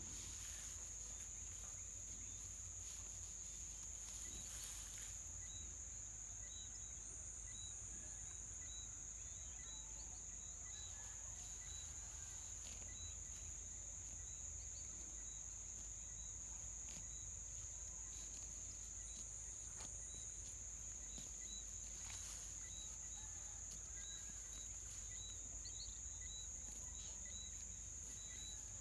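Insects trilling steadily at a high pitch, with a faint row of short, evenly spaced chirps from another insect beneath it.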